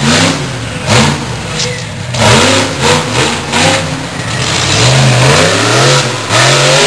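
Monster truck engine revving hard in repeated bursts, its pitch climbing and falling again several times as the truck drives.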